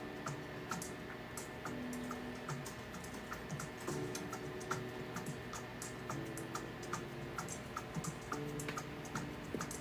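Background music with a quick, steady ticking beat and held low notes that change every second or so.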